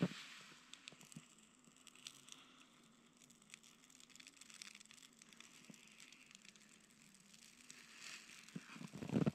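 Small fire of dry grass tinder catching and crackling faintly, with scattered pops, plus a louder rustling burst at the start and another shortly before the end.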